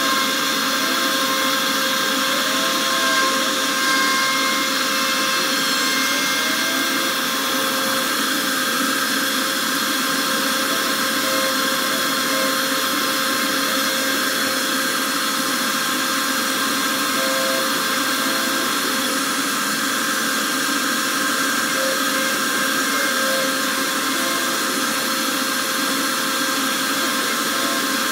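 Avid Desktop Pro CNC router spindle running with a steady whine as its bit cuts into a wooden tray, over the even rush of the dust-collection vacuum drawing through the hose at the spindle.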